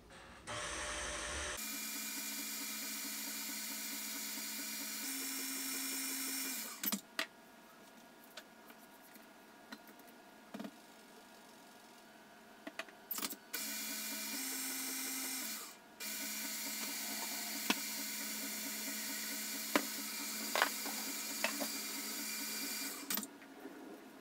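KitchenAid stand mixer motor whirring as it beats cake batter, running in three stretches with short stops between, its pitch stepping up for a moment twice. Light clicks and knocks sound in the pauses.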